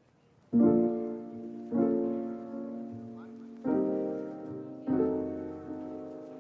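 Background music: slow chords starting about half a second in, four strikes each left to ring out and fade.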